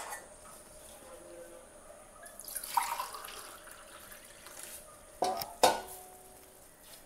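Water running into a bowl for about two seconds, followed a little later by two sharp knocks as a vessel is set down, the second knock the loudest.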